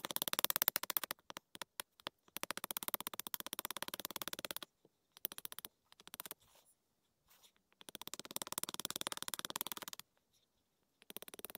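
Newly lit campfire crackling as the kindling catches: dense, rapid crackles in several bursts of one to two seconds, broken by short silences.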